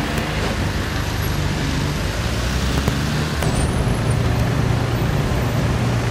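Road traffic in a jam: the engines of queued cars and minibuses idling and creeping forward, a steady low engine hum under road noise.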